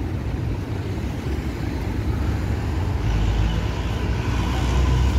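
City street traffic: cars running along a busy boulevard as a steady low rumble, which grows louder about three seconds in as a vehicle comes close.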